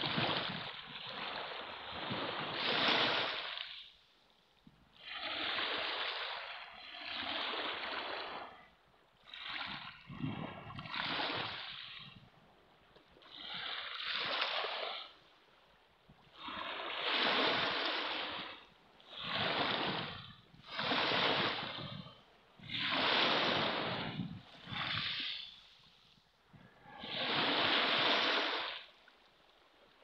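Small waves lapping on a pebble beach: a string of short washes, each hissing for a second or two with brief lulls between, roughly every two seconds.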